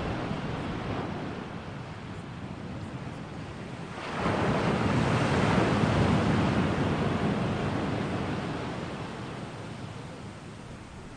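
Ocean surf: a rushing wash of noise that swells sharply about four seconds in and slowly dies away.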